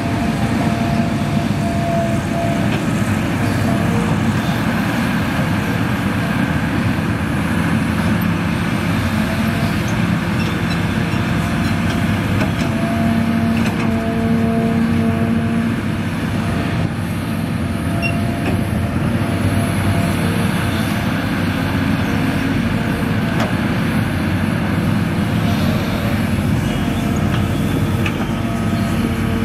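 Large Hitachi hydraulic excavator working, its diesel engine running steadily under load while it digs and swings soil into a dump truck, with tones that rise and fall as the hydraulics work.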